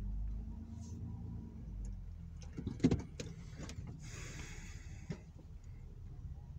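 Low steady hum of a Mercury SUV idling, heard from inside the cabin, fading down after about two seconds. A few sharp clicks and knocks come about three seconds in, and a brief hiss follows a second later.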